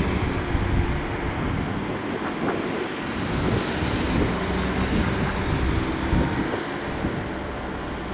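E-8C's jet engines running steadily, with wind buffeting the microphone.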